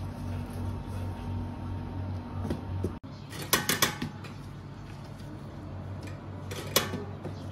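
Metal bench scraper chopping through dough and striking a plastic cutting board: a quick cluster of sharp clicks about halfway through, then one more sharp click near the end. A steady low hum runs underneath.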